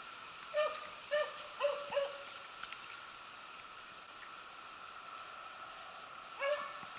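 Beagles giving tongue while running a rabbit's scent: four short yelps in quick succession within the first two seconds, then one more near the end.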